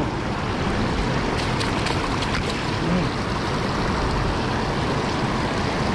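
Shallow river water rushing steadily over a concrete bank, with a few light ticks and splashes near the start.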